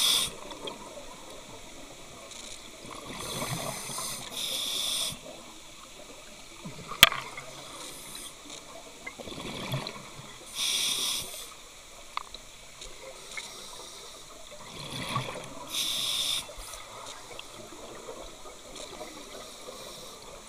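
Scuba diver breathing through a regulator underwater: three bursts of exhaled bubbles about six seconds apart, with a quieter hiss between them. A single sharp click sounds about seven seconds in.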